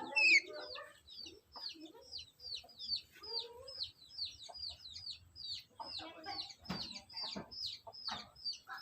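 Black-capped lory calling: a steady run of short, high, downward-slurred chirps, about three to four a second. Lower, rougher chattering calls come in at the start, which is loudest, and again a few seconds from the end.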